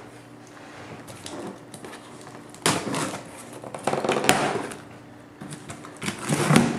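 Scissors slicing through the packing tape along the seam of a cardboard shipping box, heard as three short scraping rustles with a sharp click in the middle one.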